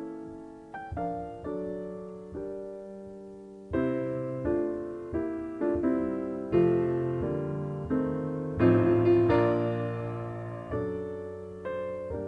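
Solo piano music: slow, gentle chords and notes, each struck and left to ring out before the next.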